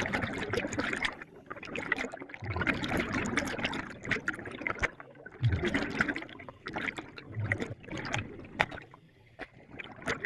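Scuba diver's exhaled air bubbling out of the regulator, in bursts of a few seconds with short lulls between, recorded underwater through a GoPro's waterproof housing. A few dull knocks.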